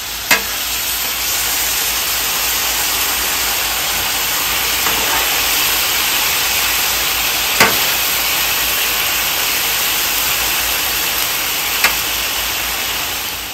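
Steak and sliced vegetables sizzling on a Blackstone flat-top griddle, the steak in a pool of poured-on juice, a steady hiss that fades near the end. A metal spatula clicks against the griddle three times as the vegetables are turned.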